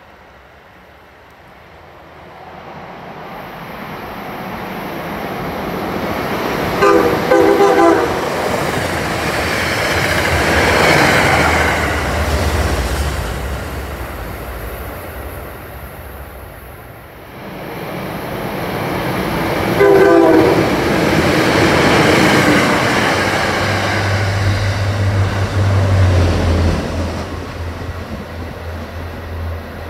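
Two trains passing at speed, each sounding a short horn blast on its approach, about seven and about twenty seconds in. The wheel and rail noise swells and fades with each pass. The second train is an MBTA commuter rail train, with a low diesel engine drone as it goes by.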